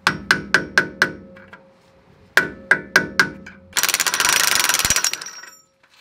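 Hammer tapping metal to bend back the locking tabs of the Hilux front hub's nut retaining plate: two quick runs of about five ringing metallic strikes. A loud rasping noise of about a second and a half follows.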